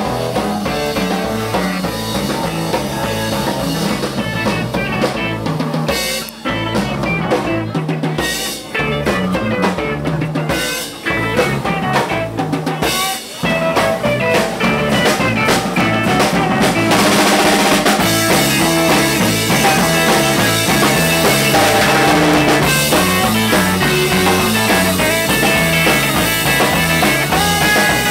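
Live instrumental rock band, two electric guitars and a drum kit, playing an up-tempo instrumental. The sound dips briefly several times in the first half, then the band plays fuller and louder from about halfway on.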